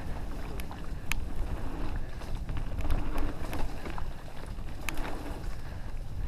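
Steady low rumble with wind on the microphone while riding over rough ground, with scattered sharp clicks and rattles, two of them louder about a second in and near five seconds in.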